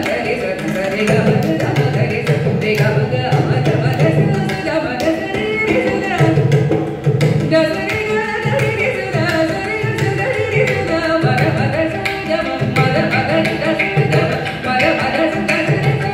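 Live Carnatic music in raga Abhogi, set to khanda chapu tala (a five-beat cycle): a woman sings, accompanied by violin, with mridangam and ghatam keeping up a running pattern of drum strokes.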